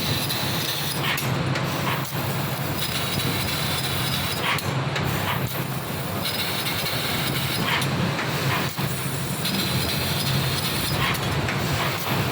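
CNC laser cutting machine running with a steady low hum, joined every few seconds by a higher hiss that starts and stops abruptly as cuts begin and end.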